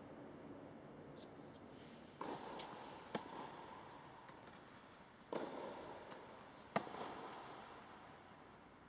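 Tennis rally on an indoor court: sharp cracks of racket strikes on the ball, the two loudest about three seconds in and near seven seconds in, with fainter hits and ball bounces between, echoing under the dome.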